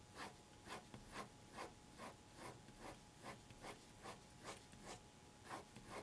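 Koh-I-Noor Rapidomatic 0.7 mm mechanical pencil with HB lead scratching across paper in a run of short, faint, even strokes, about two a second, as lines are hatched.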